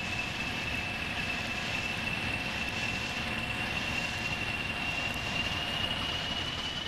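Diesel train running, a steady rushing noise with a high whine that slowly rises in pitch, easing off near the end.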